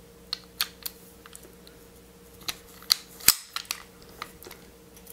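Scattered metal clicks and light knocks of a 1911 pistol's steel slide, recoil spring parts and frame being handled during reassembly, with the sharpest click a little over three seconds in.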